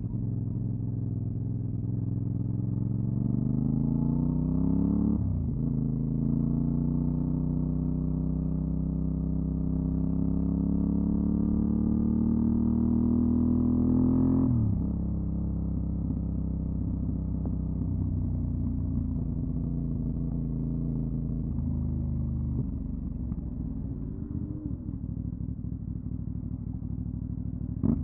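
Aprilia Dorsoduro 750's V-twin through a LeoVince SBK exhaust, accelerating. It rises in pitch, drops on an upshift about five seconds in, then climbs again in a long pull before falling off around halfway. It then runs steadily and eases down near the end.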